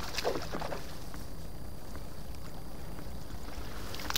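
A hooked trout splashing and thrashing at the surface of the water, briefly about half a second in, over a steady low rumble.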